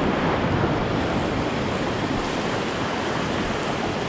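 Small ocean waves breaking and washing up the beach at the water's edge, a steady rush of surf that eases a little toward the end.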